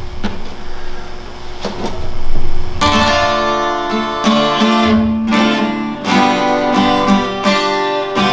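Acoustic guitar strummed in chords, starting about three seconds in as a song's introduction. Before it there is a low rumble with a couple of light knocks.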